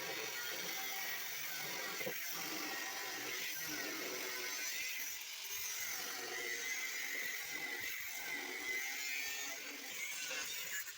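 Metal repair work on a broken, bent roller: a steady hissing noise with a few faint clicks.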